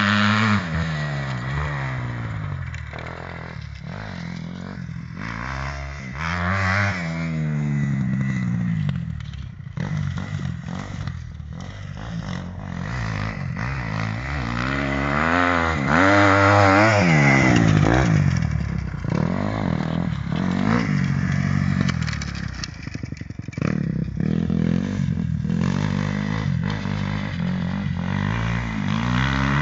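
Dirt bike engine revving as the bike rides around a dirt track. Its pitch repeatedly rises under throttle and falls away, and it is loudest about halfway through as the bike passes close.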